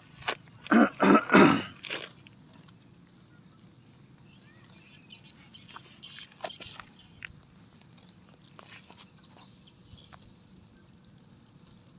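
Several loud, short animal calls in quick succession about a second in, then scattered crisp ripping and crunching typical of cattle tearing and chewing grass.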